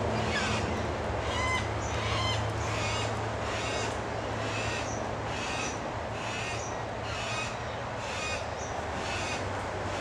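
White-tailed black cockatoos calling, with one short call repeated steadily about every two-thirds of a second: the begging of a young cockatoo being fed by an adult.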